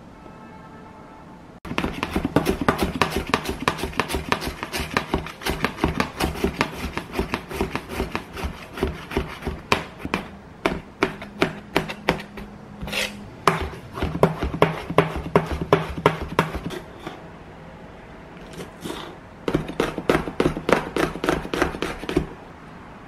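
A knife chopping food on a cutting board in quick, even strokes, about four or five a second. The chopping comes in runs with a few short pauses, the longest near the end.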